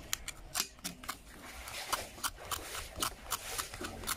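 A steel knife blade scraping the soot-blackened copper braid of a lightning-damaged coaxial cable, a run of short, irregular rasping scrapes a few times a second, baring clean copper under the burn.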